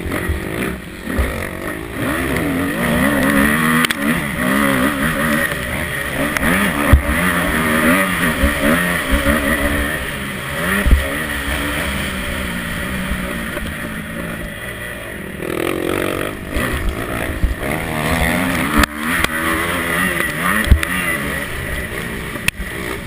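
A motocross bike's engine heard from on board, revving up and falling back again and again through the corners and straights of a dirt track, with a few sharp knocks from the bike over the ruts and bumps.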